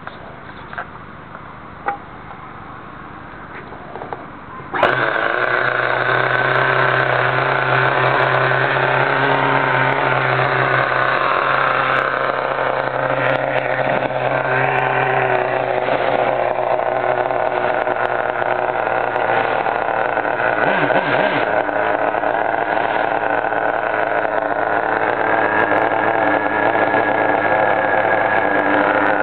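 Kyosho RC car's nitro glow engine catching suddenly about five seconds in, after a few small handling clicks, then running steadily and loudly at idle.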